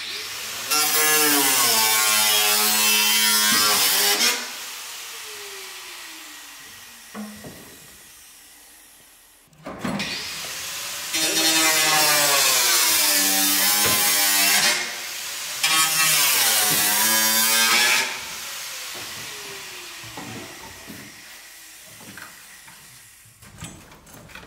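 Angle grinder cutting into steel body metal in three passes, its motor pitch wavering and sagging under load. After each of the first and last passes, the disc winds down slowly with a falling whine.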